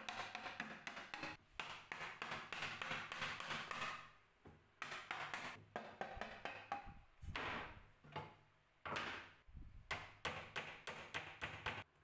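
Rapid taps and knocks on the old wooden suitcase's dovetailed boards as the corner joints are knocked apart from the inside. The knocks come in quick runs, sometimes three or four close together.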